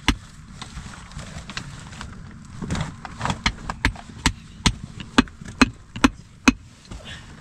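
Chopping blows struck in a steady rhythm, about two a second: one at the start, then after a pause a run of about nine sharp strikes, the last ones the loudest.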